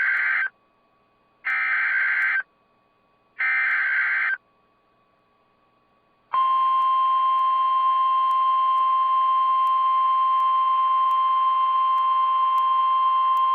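Emergency Alert System (SAME) header: three one-second bursts of screeching digital data tones, about two seconds apart. After a short pause, a long steady alert tone near 1 kHz starts about six seconds in and holds, the attention signal that a new warning is about to be read.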